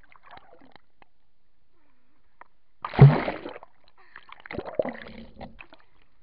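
Lake water splashing over a towed inner tube and the camera riding on it: one hard splash about three seconds in, then a rougher stretch of sloshing and spray a second later.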